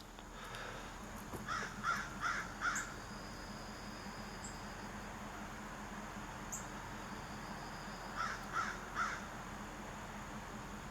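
A crow cawing: a run of four caws a second and a half in, then three more about eight seconds in, over a faint steady background hum.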